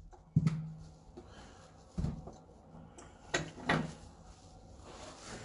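Four short knocks and thuds of things being handled in a small room: one just after the start, one about two seconds in, and two close together about a second later.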